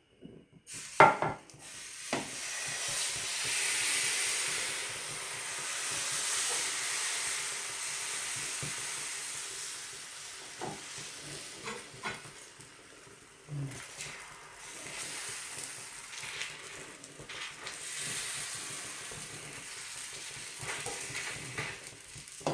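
Semolina and rice-flour batter for saru chakli pitha sizzling on a hot oiled pan, the hiss swelling and easing as the crepe cooks. A few sharp knocks of a utensil on the pan.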